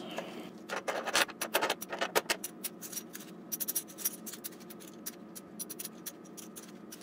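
Silver Mexican Libertad coins clicking and clinking against one another as they are gathered up and stacked by hand on a cloth pad, with light scraping. The clicks come thick and fast in the first couple of seconds, then grow sparser.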